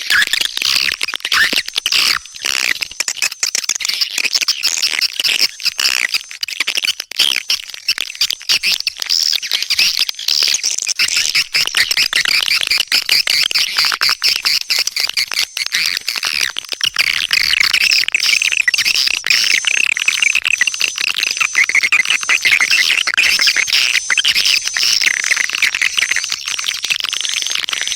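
Swiftlet calling track: a dense, unbroken chatter of high-pitched swiftlet chirps and twitters with sharp clicks. A recording of this kind is played to lure swiftlets into a nesting house.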